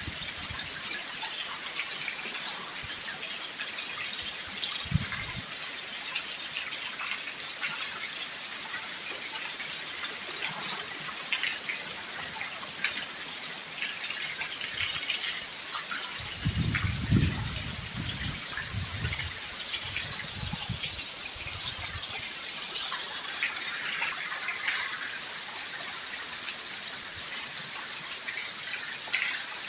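Steady rain falling, a constant hiss with scattered small drop ticks. A low rumble comes briefly near the start and again for several seconds past the middle.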